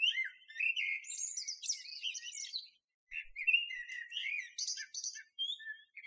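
Birdsong: a quick run of chirps, twitters and short whistles, with a brief pause about three seconds in.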